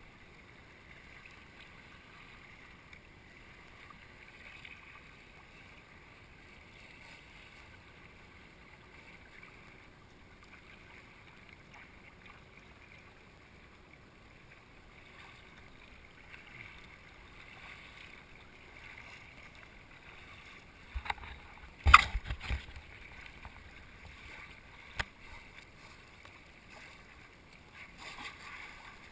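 Choppy water lapping and splashing against a plastic sit-on-top kayak. A cluster of sharp knocks comes about three-quarters of the way through, and a single knock follows a few seconds later.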